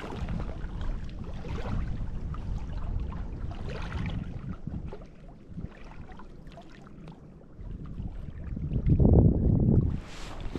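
Wind buffeting the microphone in low, uneven gusts, swelling to its loudest about nine seconds in.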